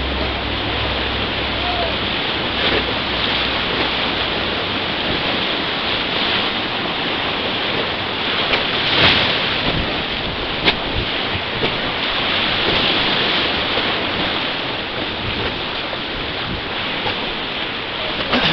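Whitewater rapids rushing and churning steadily around a raft, with a couple of sharp knocks or splashes about nine and eleven seconds in.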